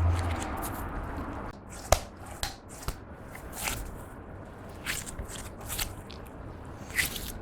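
Clear slime being kneaded and squeezed by hand, giving irregular sticky crackles and small pops as air pockets burst. A denser rumbling handling noise comes first and gives way after about a second and a half.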